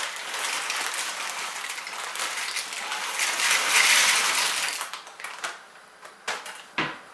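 Dry pasta poured from its packet into a pot of water: a dense rattling hiss of many small pieces hitting the pot, loudest about four seconds in and dying away after about five seconds. A few separate knocks follow near the end.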